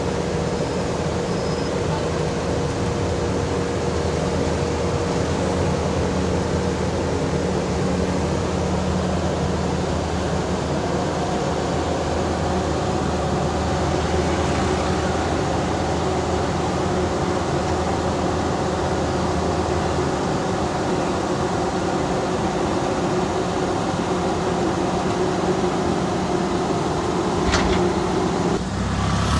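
Heavy diesel construction machinery running steadily, a deep engine hum whose pitch pattern shifts about ten seconds in, with a sharp knock near the end.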